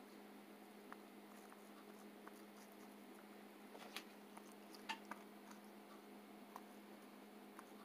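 Near silence over a steady low hum, with a few faint clicks and soft dabbing as a basting brush is dipped into a bowl and brushed onto mushroom slices; the sharpest clicks come about four and five seconds in.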